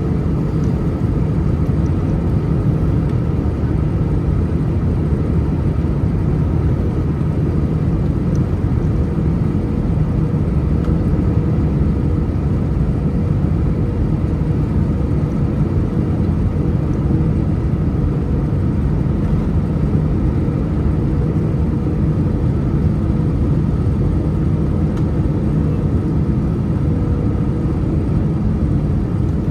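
Steady cabin noise of an Airbus A319-114 in flight: a constant low rumble of airflow and its CFM56 engines, with faint steady tones over it.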